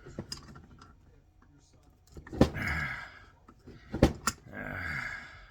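Hand tools working on a heavy metal receptacle while tight nuts are loosened. There is a sharp knock about two and a half seconds in and two quick knocks about a second later, each followed by a second or so of rasping scrape.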